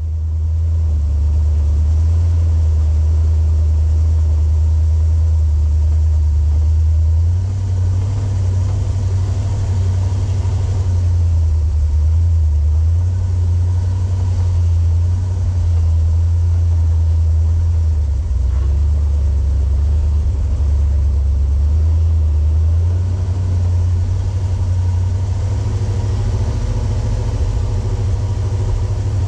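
Off-road vehicle's engine running with a steady low rumble while crawling; its low note shifts a couple of times.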